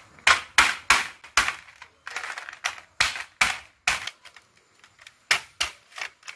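Hand-held stone striking crab legs on a metal plate, cracking the shells: about a dozen sharp knocks at uneven intervals, with a short pause a little past the middle.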